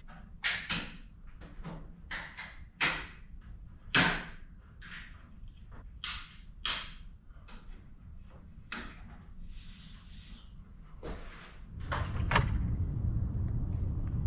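Sharp knocks and clatters, a dozen or so, from a stepladder being set up and a ceiling fluorescent light fixture being handled. About twelve seconds in they give way to a steady low rumble.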